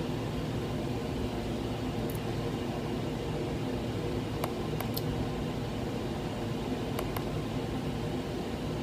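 Steady low hum and hiss of room background noise, with a few faint, short clicks scattered through it.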